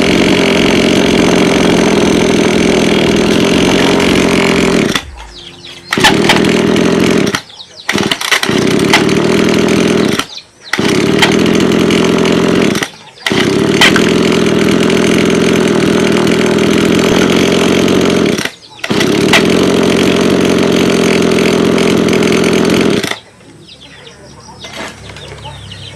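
Small two-stroke grass-cutter engine running steadily, breaking off abruptly several times with short gaps before picking up again.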